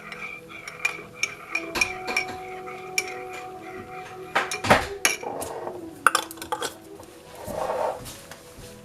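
Kitchen clatter of utensils and dishes: repeated clinks and knocks of metal and crockery, with the loudest knocks about halfway through and a short scraping rustle near the end.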